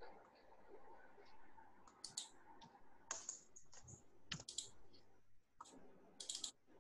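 Faint computer keyboard typing and mouse clicks: a scattered handful of short clicks, some in quick little runs.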